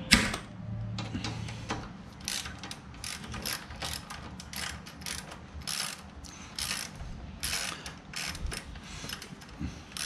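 Ratchet wrench clicking in short, uneven runs as a 10 mm ground bolt is undone from a motorcycle frame, opening with one sharp, loud click.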